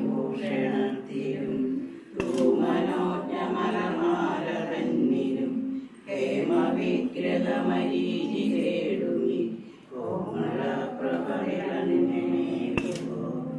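A group of women chanting a prayer together in unison, in phrases of about four seconds with short pauses between them.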